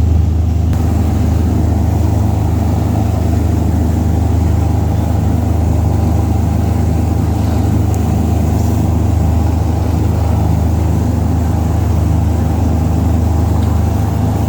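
A steady, loud low engine drone that holds an even pitch throughout.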